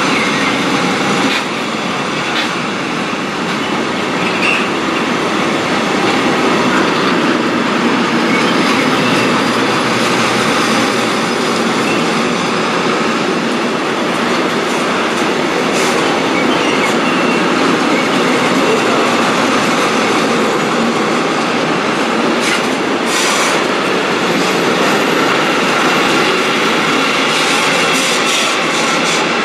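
Freight train wagons rolling past at speed: a steady, loud rumble of steel wheels on rail. A few sharper clanks come in the second half.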